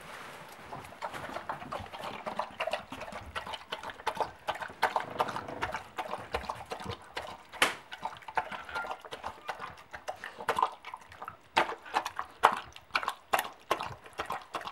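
A cat eating food from a metal bowl: a dense, irregular run of wet chewing and smacking clicks, with several louder clicks in the second half.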